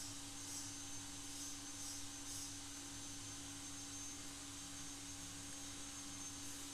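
Steady low electrical hum with a thin high whine, and a few soft crinkles of a plastic snack pouch being handled in the first couple of seconds.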